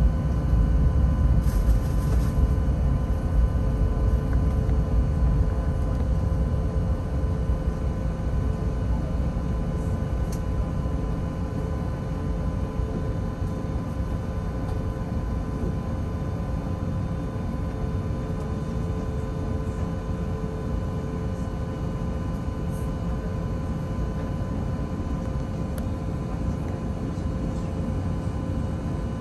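Airbus A380-841's four Rolls-Royce Trent 900 engines heard from inside the cabin: a deep, steady rumble with several steady whining tones above it, easing slightly in loudness.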